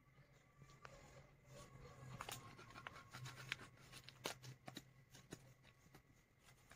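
Very faint handling noise: soft rustles and scattered small clicks, heaviest mid-way, over a low steady hum.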